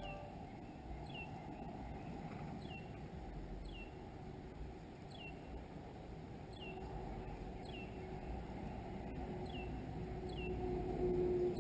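A bird repeating a short, high, downward-sliding note about once a second, over a steady low rumble.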